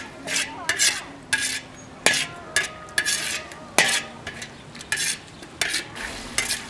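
Metal ladle scraping and knocking around a large steel wok, about two strokes a second, stirring ingredients frying in oil and sauce with a light sizzle. The wok rings briefly after a few of the strokes.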